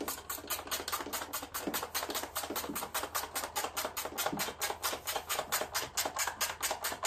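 Socket ratchet clicking quickly and evenly, about six clicks a second, as engine shroud bolts are run in and snugged up.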